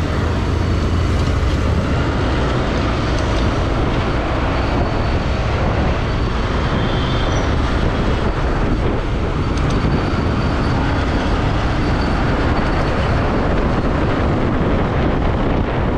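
Riding noise from a Honda Shine 125 motorcycle on the move, picked up by a GoPro's built-in microphone: steady wind rumble over the mic, with the bike's single-cylinder engine and passing traffic underneath.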